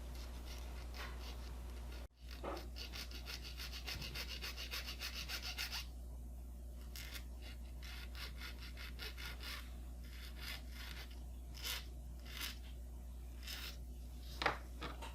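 Small hand file scraping a small tube that holds a toy car's nail axle, trimming it to fit: a quick run of short back-and-forth strokes, then slower, spaced single strokes. A steady low hum runs underneath.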